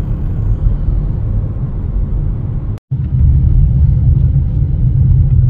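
Steady low rumble of a car driving over a rough off-road track. It breaks off for a moment about three seconds in, then comes back slightly louder.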